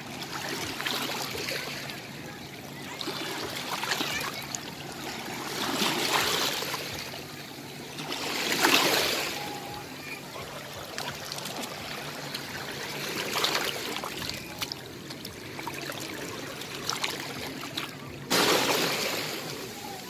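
Shallow seawater washing over rocks and seaweed at the shore, swelling and easing every few seconds. A louder rush of water starts suddenly near the end.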